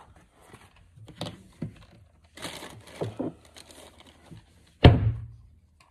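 Rummaging through gear stowed in a boat compartment: rustling, crinkling and small clicks as items are moved, then one loud thump about five seconds in.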